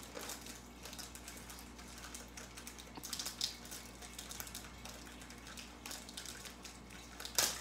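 Fingers picking and tearing at the top of a cardboard Peeps marshmallow box: a run of faint small clicks and crackles, with a louder sharp crack near the end.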